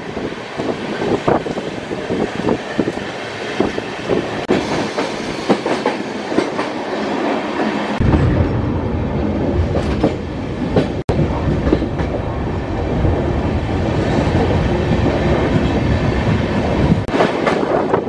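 Passenger train coach running along the track, its wheels clicking and clattering irregularly over the rails under a steady rushing noise. A heavier low rumble comes in about halfway through and drops out again near the end.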